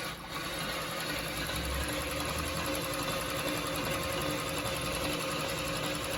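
Single-needle chain stitch industrial sewing machine running steadily as it sews a seam. It starts up right at the beginning.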